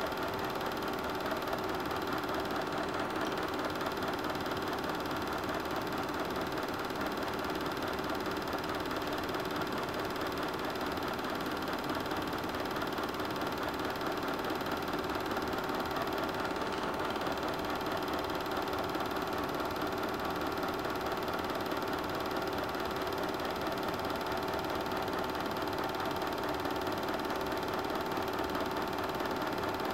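Super 8 film projector running with a steady mechanical hum.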